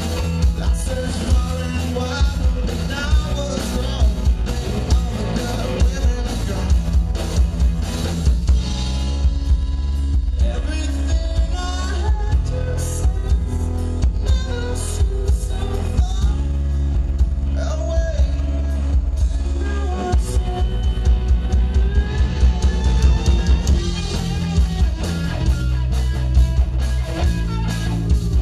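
Live rock band playing at full volume: electric guitars over a drum kit keeping a steady beat, with a singer's voice.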